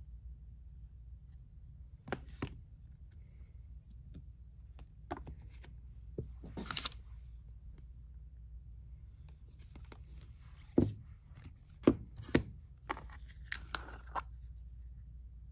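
Tabletop handling sounds: card stock rustling and sliding, and small plastic jars of stencil paste clicking and knocking, with three sharper knocks a little past the middle. A faint steady low hum lies underneath.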